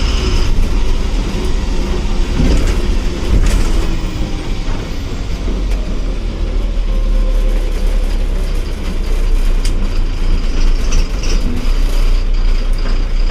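Eicher bus's diesel engine running, heard from inside the driver's cabin, a steady low rumble with cabin rattle and a few short knocks.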